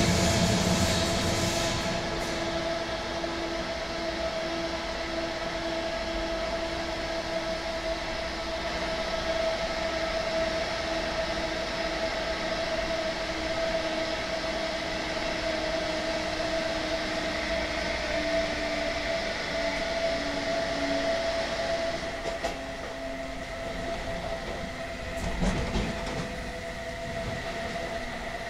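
DB Class 101 electric locomotive's ABB Micas-S GTO inverter and traction motors, heard from the next coach as the train runs: a steady whine with a lower tone that steps down in pitch, over the rumble of the wheels. The running noise eases near the end, with a few knocks, as the train slows.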